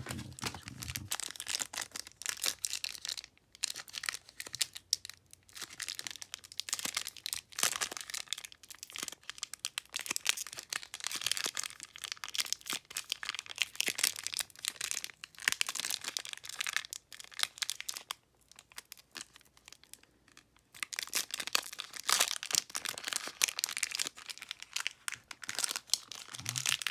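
Foil Pokémon booster-pack wrapper crinkling and tearing as it is opened by hand. Dense crackling throughout, with a pause of a couple of seconds about two-thirds through.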